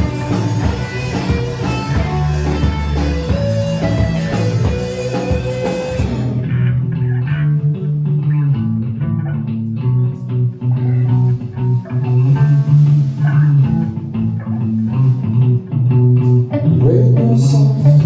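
Psych/alt-rock band playing live: electric guitars, bass guitar and drums in an instrumental passage without vocals. About a third of the way in, the cymbals and drums stop suddenly, leaving the guitars and bass ringing on.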